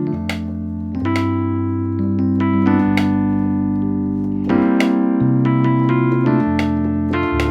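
Electric piano patch from Yamaha's Montage M softsynth plugin, a blend with piano, played as sustained chords over bass notes that change about every second or so.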